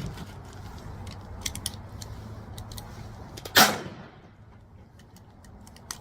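Pistol magazine being loaded by hand: a few light metallic clicks, then one loud, sharp metallic clack with a short ring about three and a half seconds in.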